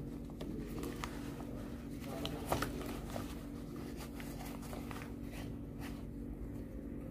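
Handling noises as protective gear is adjusted: scattered light clicks and rustles of a plastic rain suit and rubber gloves, the sharpest about two and a half seconds in, over a steady low hum.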